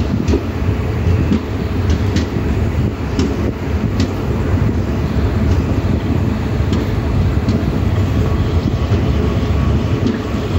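Express passenger train's coaches rolling out of a station at low speed: a steady rumble of steel wheels on the rails, with occasional sharp clicks at irregular intervals.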